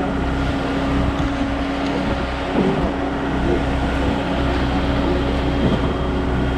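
Concrete pump truck's engine running steadily under load while pumping concrete.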